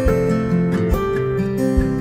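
Background music: strummed acoustic guitar over a steady low beat.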